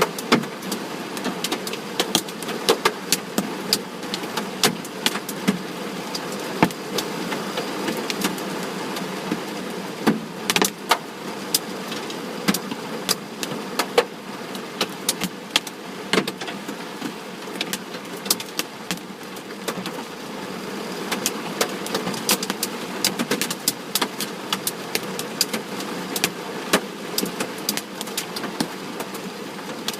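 Hailstones striking a vehicle's body, many sharp irregular impacts over a steady rattling hiss.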